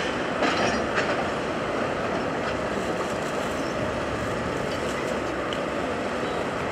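A train running past on the track: a steady rolling rumble with wheels clicking over rail joints, and a few sharper clacks in the first second.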